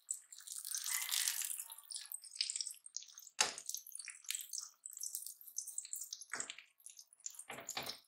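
Beaten eggs sizzling and crackling in a nonstick frying pan while a silicone spatula pushes and scrambles them. A few sharper scrapes of the spatula against the pan come about three and a half seconds in, around six and a half seconds, and twice near the end.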